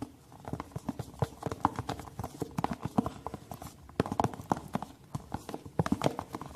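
Spoon stirring a thick slime mixture of glue, cream and paint in a container, clicking and knocking against its sides several times a second in an uneven rhythm.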